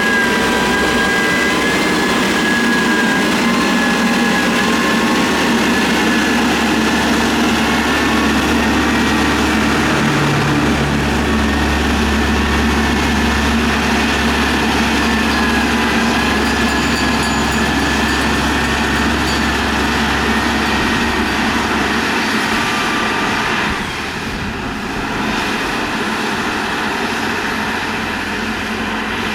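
Motor grader's diesel engine running steadily with a high whine over a low drone; the low drone drops away about three quarters of the way through and the sound gets a little quieter.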